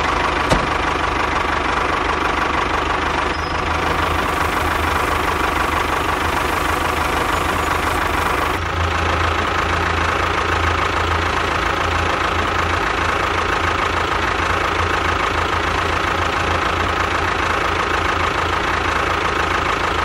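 Tractor engine running steadily with an even chugging beat and a steady higher hum over it.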